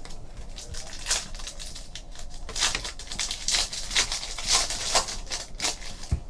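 Trading card pack and cards being handled: a string of short, scratchy rustles of foil wrapper and card stock.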